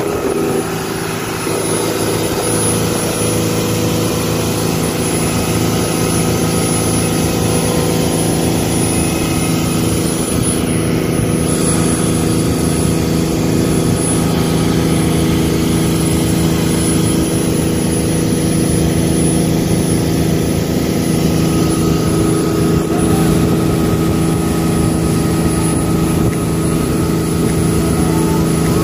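Motorboat engine running steadily at speed while towing a banana boat, with wind and rushing water.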